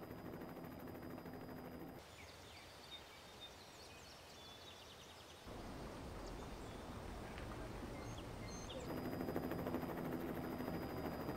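Birds chirping over a low steady drone. The short high chirps come in about two seconds in and stop about two seconds before the end.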